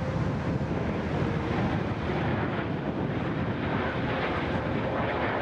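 Steady rushing jet noise from a formation of BAE Hawk T1 jets flying past, with a faint steady whine.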